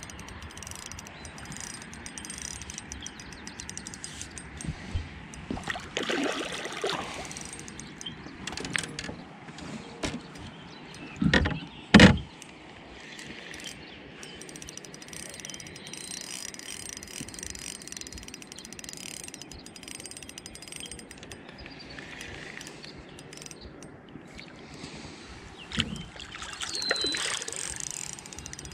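Spinning reel cranking and ratcheting during the fight with a channel catfish on an ultralight rod, with water splashing at the surface. Two loud knocks in quick succession near the middle are the loudest sounds.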